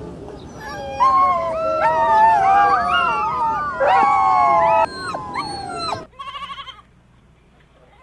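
Several puppies whining and howling together in overlapping, wavering high-pitched cries, loudest through the middle. They stop abruptly, and a goat gives one short quavering bleat.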